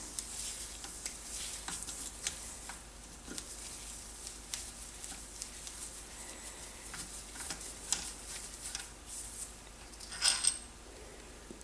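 Light, scattered metallic clicks and ticks of a long hand wrench working a crankcase bolt out of a Honda CB450 engine case, with a brief louder clatter about ten seconds in.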